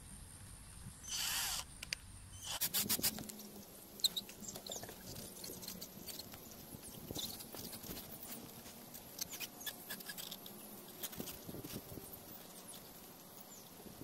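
A cordless drill runs briefly about a second in, then a run of clicks, rubbing and small knocks as a strip of bicycle tyre is pressed and worked by hand around a plastic wheelie-bin wheel.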